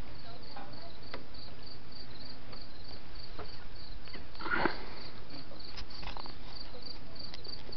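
Crickets chirping steadily, a regular high chirp about four to five times a second over a constant hiss.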